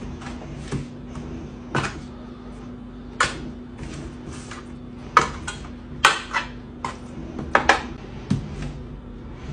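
A metal fork clacking and scraping against metal baking pans as raw chicken drumsticks are turned over: a string of irregular sharp clicks, loudest from about five seconds in, over a steady low hum.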